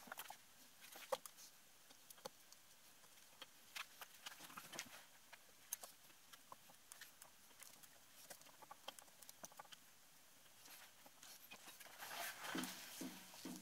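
Faint, scattered light clicks and rustles of gloved hands easing a plated cylinder down over the piston and its rings, with a louder patch of rustling near the end.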